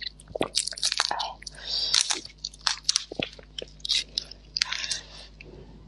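Close-up crackling and clicking of a large raw red prawn's shell being pulled apart and peeled by hand, mixed with wet mouth chewing.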